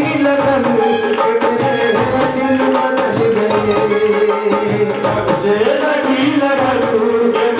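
Man singing a Hindi devotional kirtan song into a microphone over live instrumental accompaniment, with percussion keeping a steady beat.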